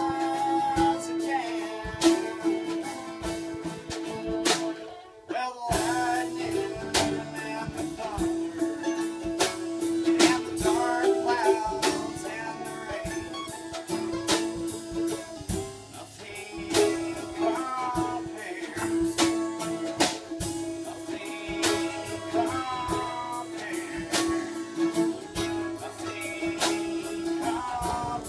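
Live bluegrass band (fiddle, mandolin, acoustic guitar and drum kit) playing a song, with sharp drum hits through it. The band stops briefly about five seconds in, then comes back in.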